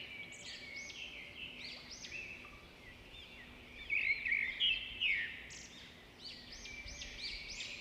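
Many small birds chirping together, a dense run of short, overlapping high chirps.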